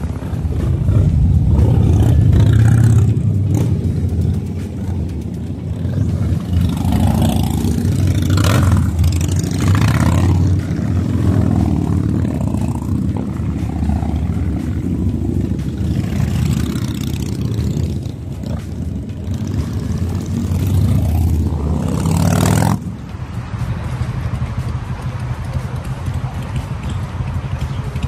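Motorcycle engine running under way, its level rising and falling with the throttle. About three-quarters of the way through, the sound drops suddenly and carries on steadier and quieter.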